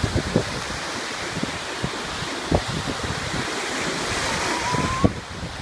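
Lake Michigan surf breaking and washing over the shallows, a steady rushing noise, with wind buffeting the microphone in low thumps. The rush drops a little near the end.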